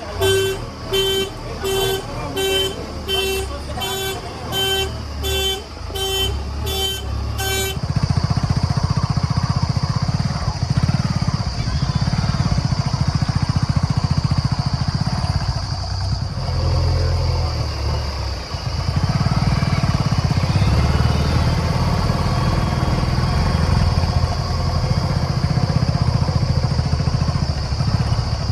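A heavy diesel vehicle's beeper sounds in regular pitched pulses, nearly two a second, over its running engine, and stops about eight seconds in. The engine then keeps running steadily and a little louder.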